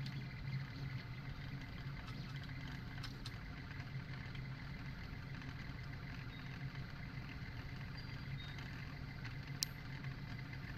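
PrintLite 3D FDM printer running mid-print: a steady low hum of its motors, with one sharp click near the end.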